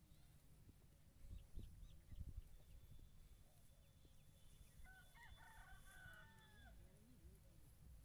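A rooster crowing faintly in the distance, one drawn-out crow about five seconds in, against an otherwise near-silent open field.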